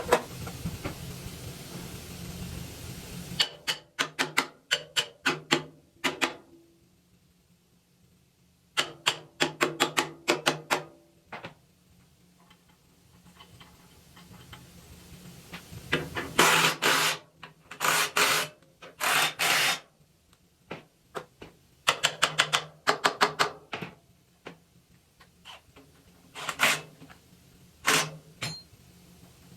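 Bursts of rapid sharp clicking from a wrench tightening bolts as the chipper's anvil is reassembled. A steady low hum stops about three seconds in.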